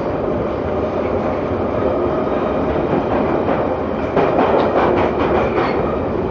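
London Underground train running: a steady rumble and rail noise, with a quick run of wheel clacks over the rail joints in the middle.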